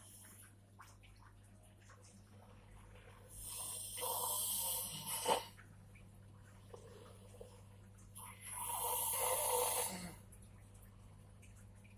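Snoring in sleep: two long snores about five seconds apart, the first ending in a short sharp snort.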